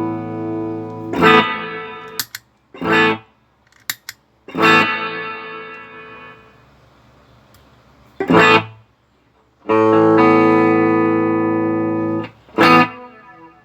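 Electric guitar chords played through an Electro-Harmonix Holy Grail Nano reverb pedal, tested after repair of failed surface-mount parts. Held chords ring and die away slowly, broken by short sharp chord stabs about four times, and a long chord near the end is cut off suddenly.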